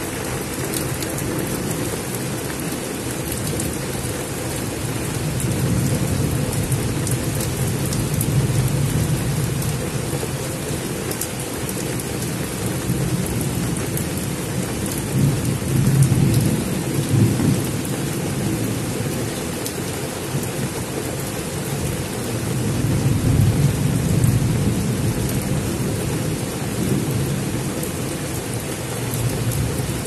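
Heavy rain pouring steadily onto dense foliage. Low rumbles swell and fade about three times.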